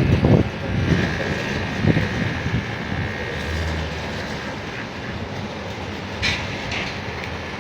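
Steady rumble of a passing vehicle, with heavier low rumbling in the first two seconds and a brief high hiss about six seconds in.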